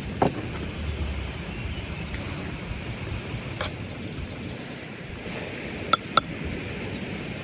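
Steady outdoor background noise with a few sharp clinks: one just after the start and two in quick succession about six seconds in.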